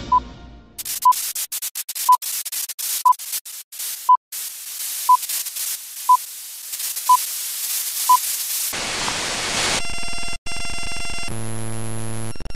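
Film countdown leader sound effect: nine short high beeps, one every second, over the crackle and hiss of old film. After the beeps stop comes steady static hiss, then a steady buzzing tone near the end.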